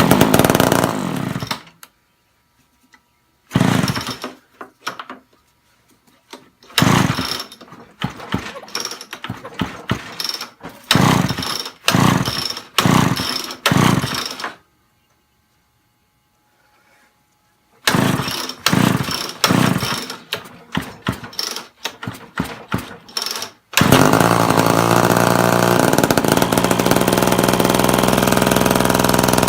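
Homelite Big Red XL two-stroke chainsaw being pull-started: several runs of quick recoil-starter pulls, each turning the engine over, with pauses between. Near the end it catches and runs steadily.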